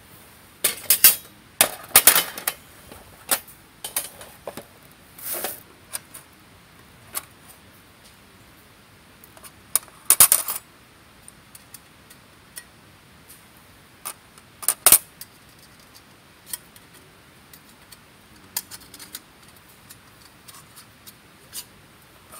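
Small metal pieces of camping gear being handled, clinking and clanking together in irregular clusters of sharp clicks, with the loudest clanks about a second in, about ten seconds in and about fifteen seconds in.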